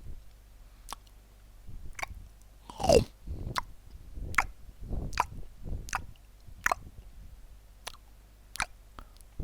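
A person chewing crunchy nachos close to the microphone: sharp crunches about once a second over wet chewing. A short falling squeak comes with the loudest crunch about three seconds in.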